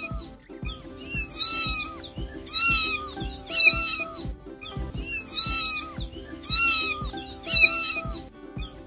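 A kitten meowing high and plaintively, one call about every second, over background music.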